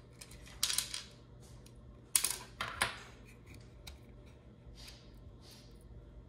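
Short clicks and clatter of small plastic parts and a screwdriver being handled and set down while a plastic night-light housing is taken apart. The loudest are two sharp clacks about two to three seconds in, with fainter rustles later.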